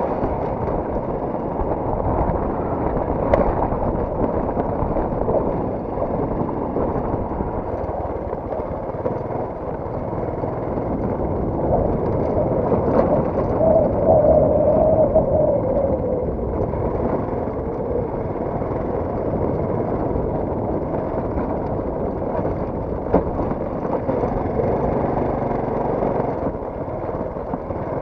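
Honda Wave 125X motorcycle's small single-cylinder four-stroke engine running steadily as it rolls slowly over a rough grass and dirt track, with a couple of brief knocks.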